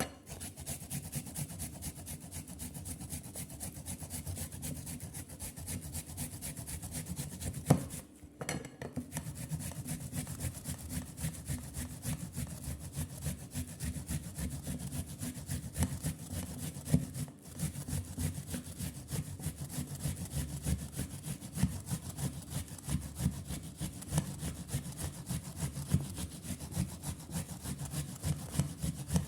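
Continuous rapid rasping scrape of ingredients being worked by hand in the kitchen. It breaks off briefly about eight seconds in and again around seventeen seconds.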